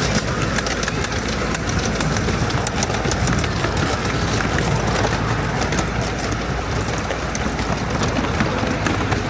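Miniature 7¼ inch gauge steam train running: a steady rumble from the locomotive and carriages on the track, with many small clicks and rattles throughout.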